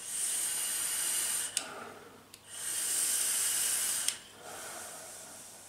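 Sub-ohm dual-coil e-cigarette being drawn on direct-to-lung: two long drags, each about a second and a half of steady hiss as air is pulled through the firing atomizer, followed by softer breathing out of the vapour.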